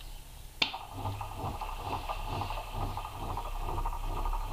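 A sharp click about half a second in as the motor is switched on, then the small microwave-oven turntable motor hums steadily with a faint rhythmic pulsing as it turns a plywood turntable carrying a heavy washing-machine motor. Under this heavy load it runs a little jerkily but copes.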